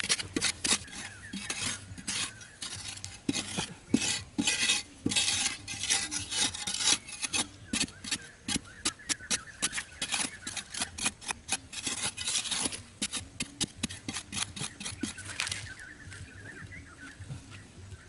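An iron digging bar jabbing and scraping into dry, hard earth at the bottom of a narrow hole, in rapid repeated strokes of about four a second. The strokes stop near the end.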